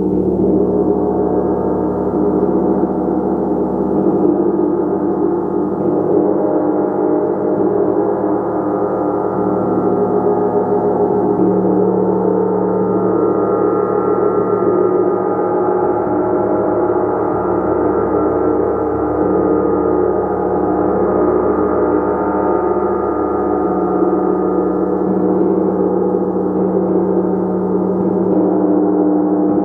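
A gong played continuously, giving a dense, sustained wash of many overlapping ringing tones at a steady loudness, with no single strike standing out.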